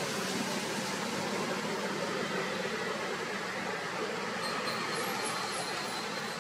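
Steady outdoor background noise, an even hiss, with faint short high chirps repeating from about four and a half seconds in.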